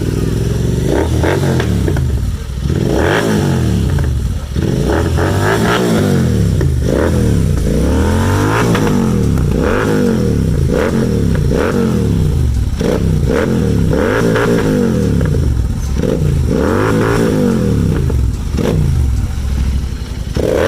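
Royal Enfield Continental GT 650's parallel-twin engine breathing through a Red Rooster Performance aftermarket exhaust, revved over and over: the throttle is blipped up and dropped back about every second and a half. Sharp crackles and pops sound from the exhaust each time the revs fall.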